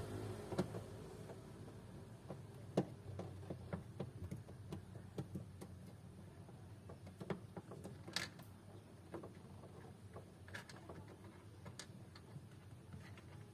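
Scattered small clicks and taps of hand tools undoing the screws and bolts that hold a car's inner door trim, with a faint steady low hum underneath.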